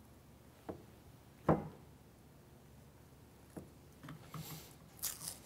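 Quiet handling of a vinyl-wrapped shotgun stock while the wrap is trimmed with a hobby knife: a few soft knocks, the loudest about a second and a half in, and a brief rustle near the end.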